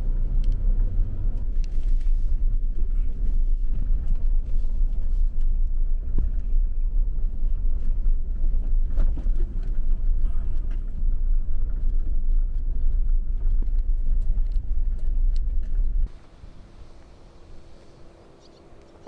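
Suzuki Jimny driving over a rough track: a loud, steady low rumble with scattered knocks and rattles. It cuts off abruptly about 16 seconds in, leaving a much quieter background.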